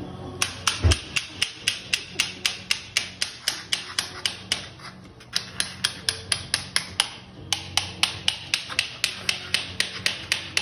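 Surgical mallet striking a metal sizing instrument (broach) to drive it into bone, in quick, even blows about four a second, with two short pauses, while the joint is sized up step by step.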